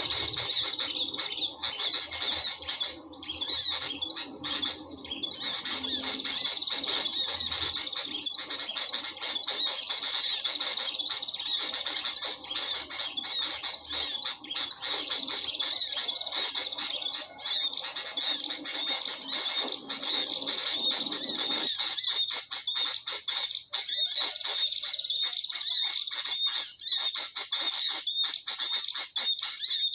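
Dense, continuous high-pitched chirping and squawking of small birds, many rapid calls overlapping. A low background rumble cuts out suddenly about two-thirds of the way through.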